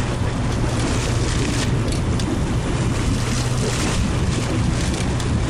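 Commercial fishing boat's engine running steadily with a low hum, over a hiss of wind and sea.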